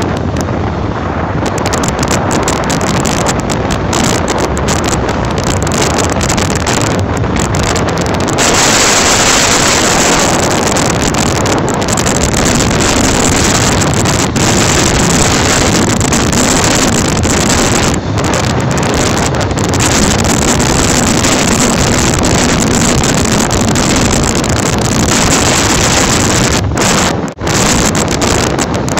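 Wind rushing hard over the microphone of a motorcycle at highway speed, with the motorcycle's engine running underneath. The rush turns brighter about eight seconds in.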